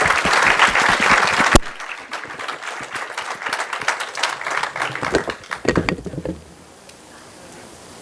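Audience applauding, densest in the first second and a half, then thinning to scattered claps that die out about six seconds in. A single sharp knock about a second and a half in.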